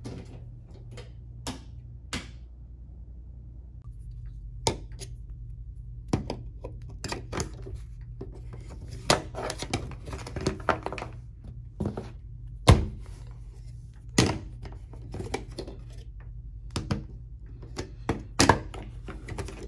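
The metal prongs of a vacuum cleaner's two-prong plug knocking and scraping against a wall outlet and its plastic cover plate as they miss the slots: irregular clicks and taps, with one sharper knock about two-thirds of the way through, over a low steady hum.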